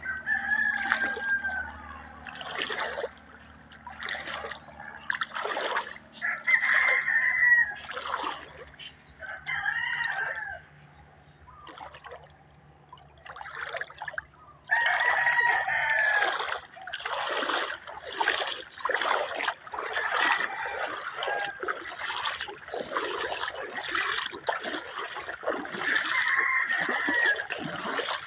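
Roosters crowing about six times, each an arched, pitched call, over steady trickling and splashing of a shallow river.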